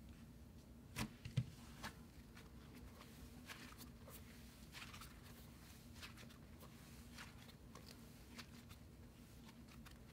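Cloud slime being stretched and squeezed by hand, giving faint scattered crackles and soft squishes, with a few louder clicks about a second in.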